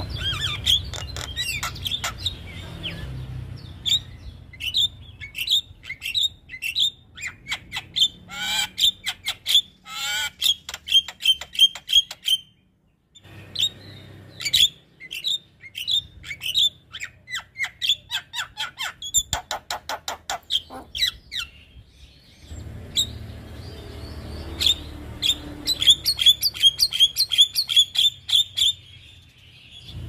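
Javan myna (jalak kebo) song: rapid runs of harsh squawks, clicks and quick repeated whistled notes, with a short break a little before halfway.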